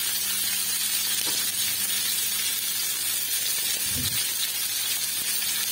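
Chicken breast pieces frying in shallow oil in a pan: a steady sizzle, with a brief soft thud about four seconds in.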